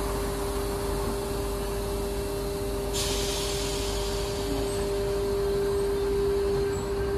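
Sydney Trains electric double-deck passenger train pulling slowly out of the platform: a steady hum from its running gear over a low rumble. A hiss comes in suddenly about three seconds in and carries on.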